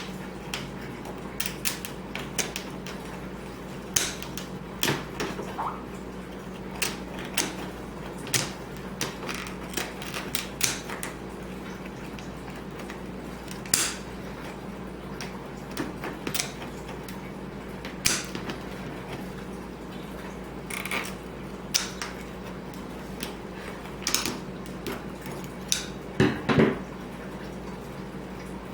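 Scattered plastic clicks, taps and light knocks from handling the parts of a cut-open ZeroWater filter cartridge, over a steady low hum.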